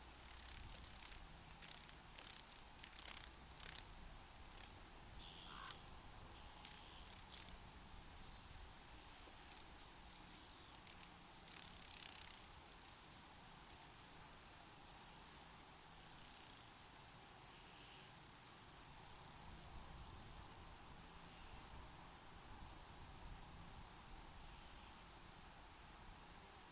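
Faint desert ambience: a soft even hiss with scattered short scratchy rustles in the first half, then, about a third of the way in, a cricket starts chirping steadily, about two high chirps a second.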